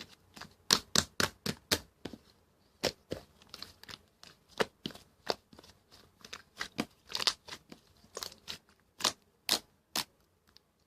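Slime being pressed, stretched and folded by hand, giving a string of sharp, irregular clicks and pops as air pockets burst. The sounds stop shortly before the end.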